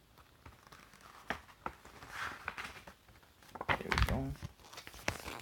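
Crinkling and rustling of snack packaging and paper being handled, with scattered clicks and taps, and a short burst of voice about four seconds in.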